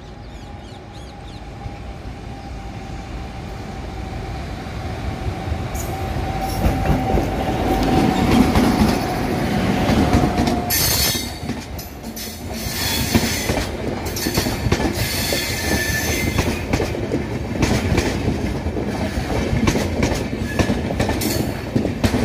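Electric-hauled passenger train approaching and passing close by, growing steadily louder. A steady tone travels with the locomotive and ends as it passes about ten seconds in. The coaches then roll past with loud wheel-and-rail rumble, clatter and high wheel squeal.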